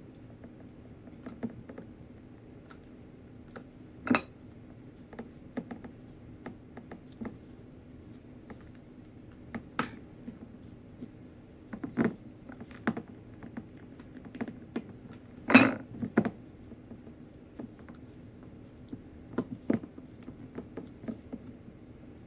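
Irregular light knocks, taps and clinks of a small glass vase and hot glue gun being handled on a work surface while rope is glued and wrapped around the vase, with a few sharper knocks scattered through.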